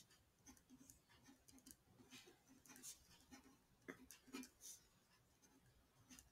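Faint scratching of a pen writing words on paper, in short irregular strokes.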